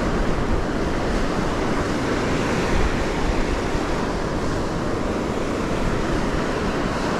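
Surf washing onto a beach: a steady, even rush of waves with no distinct events.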